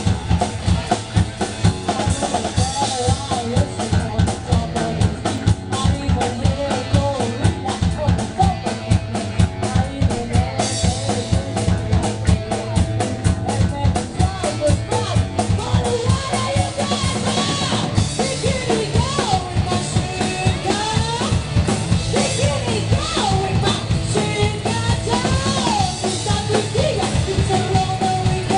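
Live rock band playing a fast song, a busy drum kit beat with kick, snare and rimshots under guitars and other pitched parts.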